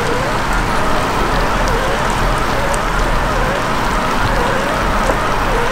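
Steady hiss of rain and running stream water, with a faint wavering tone that dips and rises about once a second.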